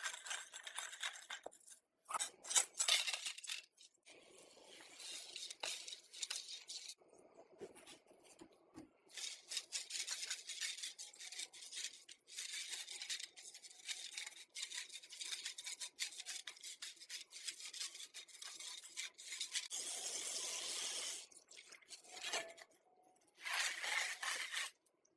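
Hand scraping and scrubbing on metal parts in irregular strokes, with small clicks and clinks, with brief pauses between stretches.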